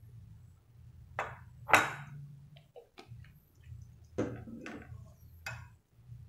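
Several sharp clinks and knocks of kitchenware, the loudest a little under two seconds in, as a bottle of food colouring is set down and a spoon is taken into a bowl of whipping cream, over a faint steady low hum.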